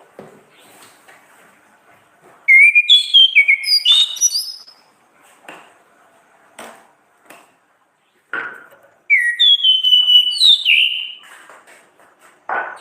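Orange-headed thrush singing two loud bursts of quick whistled phrases, each about two seconds long, the second starting about nine seconds in. Sharp clicks and knocks fall in the gaps between the phrases.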